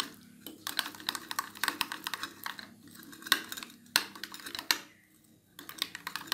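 Steel spoon stirring spice paste into yogurt in a bowl: rapid clicking and scraping of the spoon against the bowl, with a few louder knocks and a brief pause near the end.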